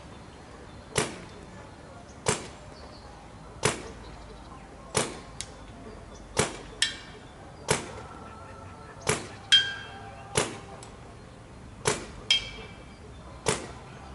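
Paintball marker firing single shots at a steady pace, a sharp pop about every second and a half, ten in all. Three of the shots are followed a moment later by a ringing clang as the ball strikes a target downrange.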